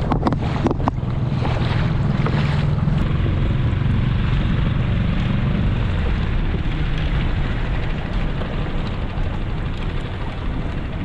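Mercury outboard motor running steadily with the skiff under way, with wind buffeting the microphone and water rushing along the hull. A few sharp knocks come in the first second.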